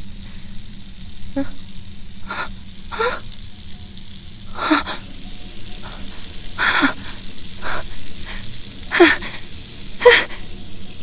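A woman's short breathy gasps and exclamations, about seven of them, each dropping in pitch, over a steady faint hiss.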